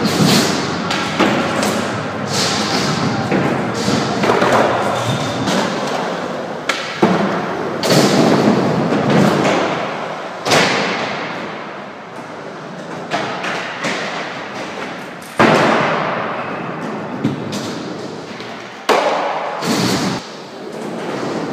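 Skateboards rolling on wood ramps and a concrete floor, with several sharp board slaps and clacks from landings and tail pops, each ringing out in a large echoing hall.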